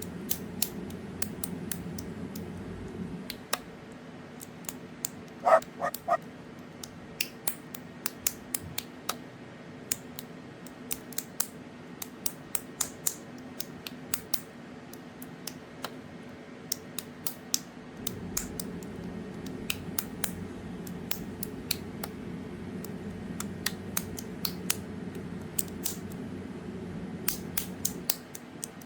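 Plastic Lego bricks being handled and pressed together: many small sharp clicks at an irregular pace, with a brief creaking squeak of plastic about six seconds in. A low steady hum sits underneath for the first few seconds and again for the last ten or so.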